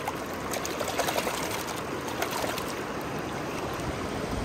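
Plastic toy fish swished by hand through shallow river water, splashing for a couple of seconds, over the steady rush of the flowing river.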